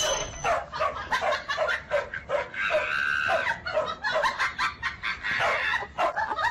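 A dog barking over and over in short yaps, about three a second, with one longer drawn-out cry about three seconds in.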